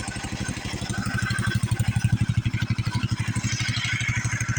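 Old tractor engine idling, an even, rapid putter of firing strokes that grows more pronounced for about a second in the middle.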